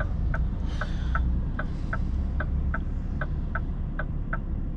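Turn-signal indicator ticking steadily in the truck cab, about three ticks a second, over the low rumble of the Scania's idling diesel engine while the truck waits at a roundabout.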